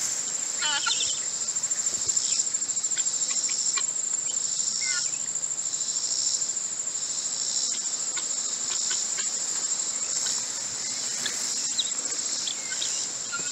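Steady, shrill chorus of insects trilling, with a few short faint high chirps now and then.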